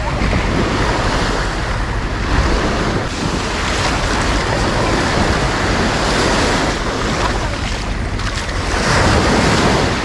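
Sea waves breaking and washing up on a sandy beach, swelling louder about nine seconds in, with wind buffeting the microphone.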